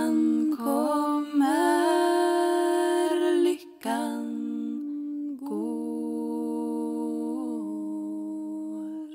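Female voices singing a cappella in close harmony, holding long chords in three phrases, with short breaks about three and a half and five and a half seconds in.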